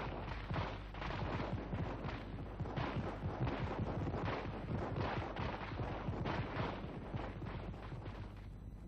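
Sustained gunfire: many shots fired close together and overlapping, easing a little near the end.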